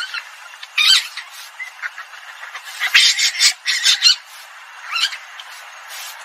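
Asian palm civet calls from a hunting lure recording: short, high, pitch-bending calls in irregular clusters, a burst about a second in and a longer run of calls around the middle.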